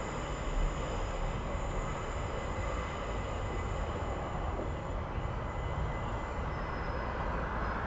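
Southern Class 377 Electrostar electric multiple unit running into the station and slowing for the platform: a steady rumble with a thin high whine over it.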